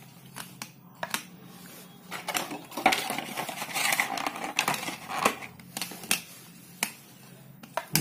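A small plastic gadget and its cable being handled: a scatter of sharp clicks and taps, with a stretch of rustling and scraping in the middle.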